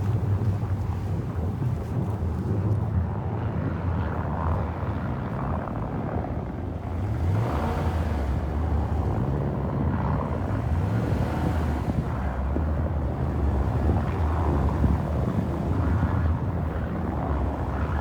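Pickup truck driving, its engine running with a low hum that rises and falls with the throttle, over steady tyre and road noise. The engine note climbs briefly about seven seconds in.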